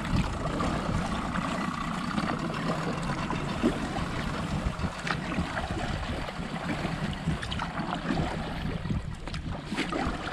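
Plastic kayak being paddled through shallow grassy marsh water: irregular water splashes and drips from the paddle strokes and grass brushing along the hull, over a steady wind rumble on the bow-mounted camera's microphone.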